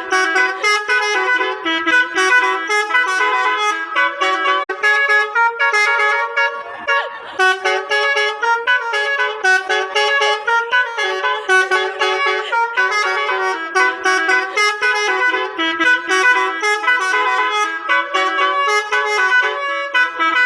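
Basuri V3 'telolet' musical bus horn playing a fast melody, its multi-tone horn notes changing pitch every fraction of a second without a break.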